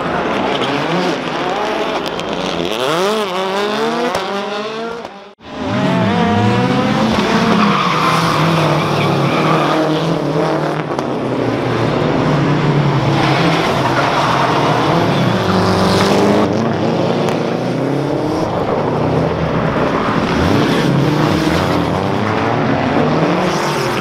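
Rally car engines at full throttle, revving up and down through gear changes, with some tyre squeal. The sound drops out briefly about five seconds in, then another car's engine carries on, revving hard.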